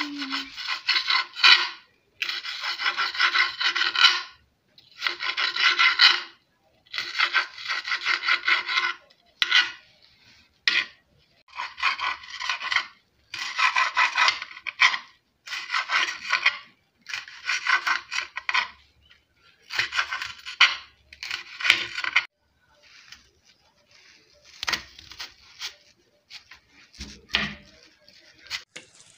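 Kitchen knife slicing red bell pepper into strips on a glass cutting board: bursts of quick clicking, scraping strokes, each a second or two long, with short pauses between them. The cuts are softer and more spaced out near the end.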